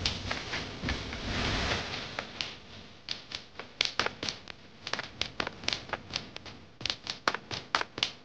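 Sound effects for an animated title sequence: a rushing noise for about the first two seconds, then a fast, irregular run of sharp clicks and taps, several a second, like typing.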